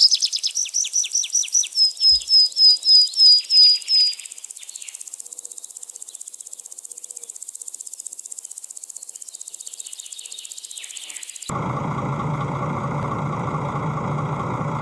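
Outdoor ambience: a bird gives a rapid series of high chirps, about four a second, for the first four seconds, then a faint steady insect chorus like crickets. About three-quarters of the way in, a vehicle engine sound cuts in abruptly and keeps running steadily.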